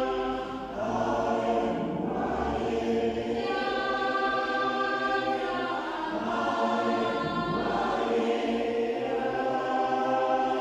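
Choir singing in a church, heard from the pews: long held chords that shift to a new chord every two to three seconds.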